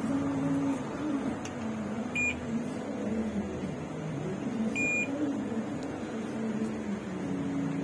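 Two short high beeps from a digital multimeter's continuity buzzer, about two and a half seconds apart, as its probes touch points on a phone logic board. Under them runs a low tone that wavers up and down in pitch.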